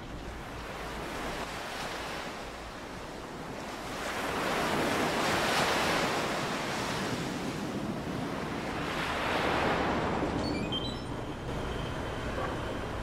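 Rushing ambient noise, like wind, that swells up and fades away twice.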